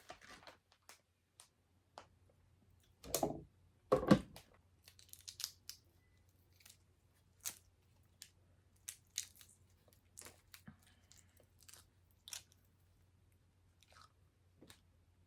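Close-miked eating: chewing and crunching of seafood and noodles, with irregular short mouth clicks and two louder strokes about three and four seconds in.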